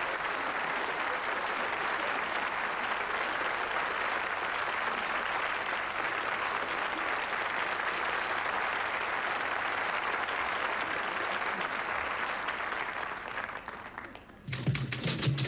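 Studio audience applauding steadily, dying away about fourteen seconds in. Just before the end, piano playing starts on grand pianos.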